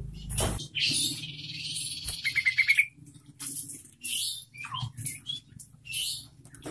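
Yellow-vented bulbul (trucukan) calling: a dense chattering phrase that ends in a quick run of about six loud notes, then short scattered chirps. A sharp knock comes just before the call.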